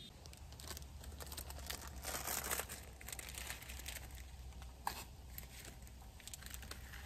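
A small plastic food packet crinkling and being torn open by hand. It makes a run of irregular crackles that are densest about two seconds in.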